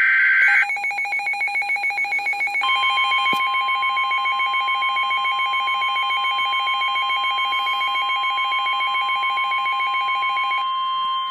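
Emergency Alert System warning tones: the end of a burst of SAME data tones, then a rapid pulsing electronic beeping, joined about two and a half seconds in by the steady single-pitch NOAA Weather Radio warning alarm tone. The beeping stops near the end and the alarm tone holds on alone for another second, the signal that a warning message is about to follow.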